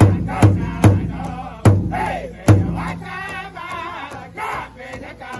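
Powwow drum group: a large hide drum struck in unison by several drummers with padded sticks, under high-pitched group singing. The drumbeats stop about two and a half seconds in, and the singers carry on without the drum.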